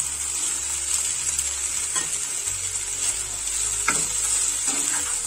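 Boiled cauliflower and potatoes sizzling in hot oil in a pan, with green peas going in, while they are stirred, with a couple of sharp scrapes of the spoon against the pan about two and four seconds in.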